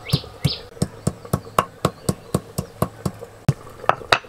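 A stone muller (nora) knocking down on a flat grinding stone (sil), crushing ginger and green chillies, with steady strokes about four a second. A bird chirps a few times briefly at the start.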